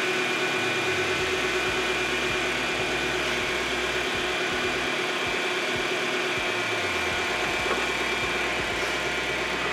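2005 Hyundai Tucson engine idling steadily.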